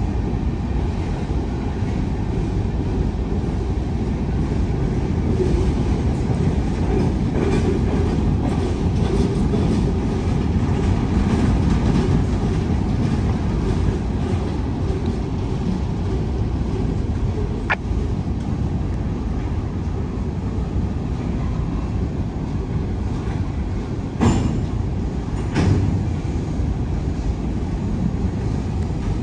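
Empty open-top hopper cars of a freight train rolling past, a steady rumble of steel wheels on the rails. Two sharp knocks come near the end.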